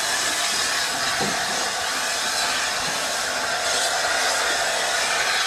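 LNER A4 Pacific steam locomotive No. 4464 giving off a loud, steady hiss of steam as it creeps forward.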